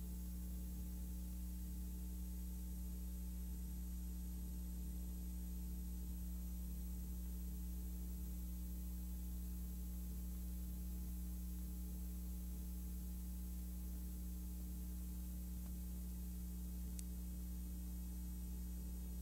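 Steady low electrical hum with a faint hiss, the noise floor of a silent film transfer, with one tiny click near the end.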